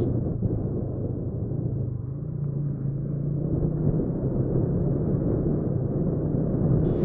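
Steady, deep engine-like rumble with a low hum, the soundtrack of an animated logo outro; a rising hiss comes in right at the end.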